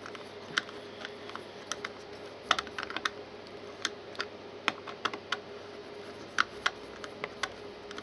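Screwdriver turning the small screws of a plastic alarm-sensor terminal block, giving a string of short, sharp, irregular clicks as the screws are screwed down. A faint steady hum lies underneath.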